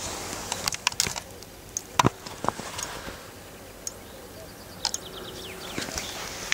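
Outdoor ambience with scattered sharp clicks and knocks, the loudest about two seconds in, and a brief rapid run of high ticks like a chirping trill about five seconds in.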